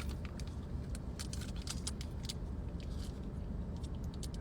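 Someone chewing a mouthful of burger with their mouth close to the microphone: scattered soft mouth clicks at irregular times, over a steady low hum.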